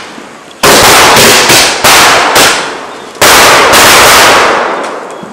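Aerial fireworks exploding: a quick run of about six loud bangs beginning about half a second in, each with a fading tail. The last, a little after three seconds, has the longest tail.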